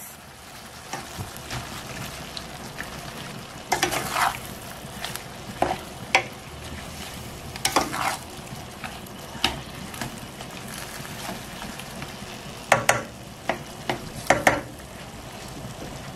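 Tomatoes, onions and garlic sizzling in oil in a stainless steel pan, stirred with a spatula that scrapes and knocks against the pan several times. This is the frying of the tomato, onion, garlic and spice base for the sauce.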